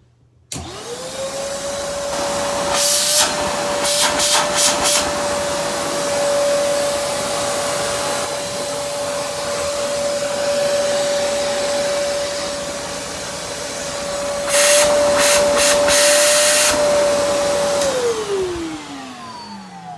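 Hoover PortaPower commercial vacuum switched on: the motor spins up within a second to a steady, loud, high whine with a rushing of air, with louder hissing rushes twice. Near the end it is switched off and the whine falls away as the motor spins down.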